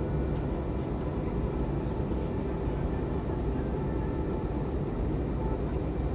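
Steady, unchanging drone of an airliner cabin in flight, a low rumble of engine and airflow noise.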